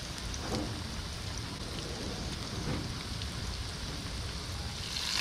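Breaded snakehead nuggets frying in hot oil in a cast-iron skillet: a steady sizzle that gets louder near the end.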